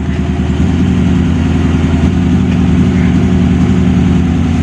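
Honda Civic Wonder's four-cylinder engine idling steadily while warming up from cold, a little louder from about half a second in.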